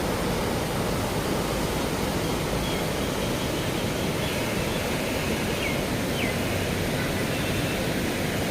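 River water flowing, a steady rushing noise with no change in level. Two faint short chirps sound briefly a little past the middle.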